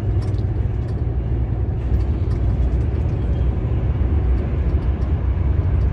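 Steady low rumble of a heavy truck's engine and tyre-and-road noise, heard from inside the cab while driving on the motorway.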